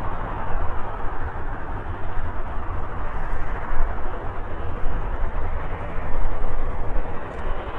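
Boeing 737-800 jet airliner running: a steady, rumbling wash of engine and air noise with a strong low rumble.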